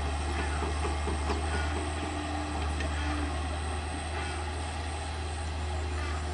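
Tracked excavator's diesel engine running steadily under working load as the boom and bucket swing, with a thin steady whine that comes and goes and a few light knocks in the first second or so.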